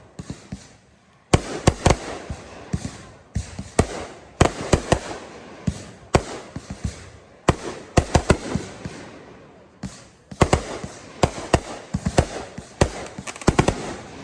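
Aerial fireworks bursting overhead: 3-inch display shells and 500-gram cakes setting off loud bangs in quick clusters, each trailing off in crackle and echo, with a short lull near the start.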